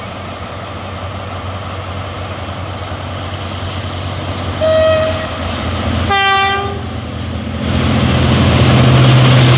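Diesel locomotive horn sounding two short blasts about five and six seconds in, the second lower in pitch and a little longer. Throughout, a diesel locomotive engine runs, and its rumble grows louder near the end as the locomotive hauling tank wagons draws near.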